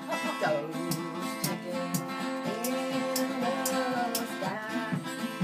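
Two acoustic guitars strumming and picking an instrumental break of a country song, with a held, wavering melody line over the chords.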